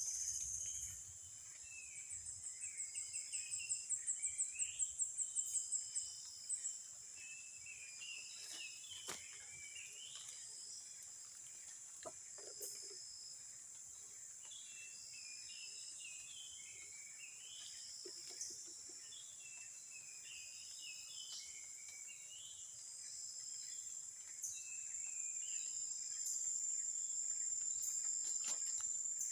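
Forest insects buzzing and chirping: a steady high-pitched drone, a quick pulsing trill that grows louder for a few seconds near the start, and short chirps repeating about every second and a half, with birds twittering.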